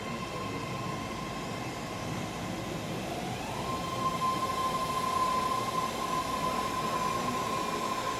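BART rapid-transit train pulling out of the station: a steady high-pitched whine, with a second whine rising in pitch about three seconds in as the train picks up speed.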